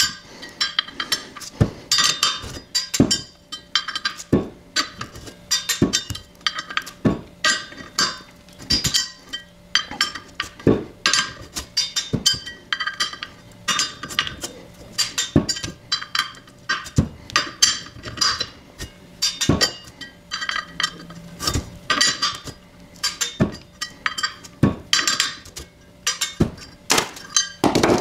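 Metal tools and parts clinking and clattering as they are handled, in irregular sharp knocks about two or three a second.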